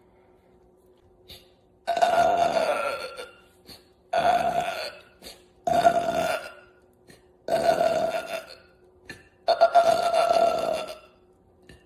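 A woman belching five times in a row, about two seconds apart. Each belch is a long, drawn-out burp held on a fairly steady pitch for about a second.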